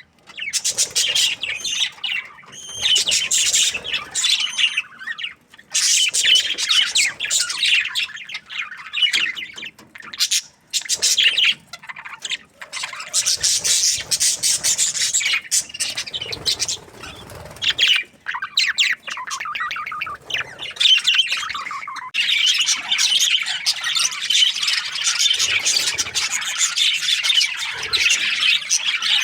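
Budgerigars chirping and chattering in a dense run of high, quick warbles and squawks, with brief pauses.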